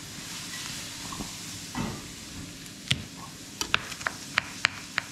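Fish frying in oil in a pan, a steady sizzle. From a little past halfway, a quick run of sharp taps, about three or four a second, on a plastic chopping board as garlic is prepared.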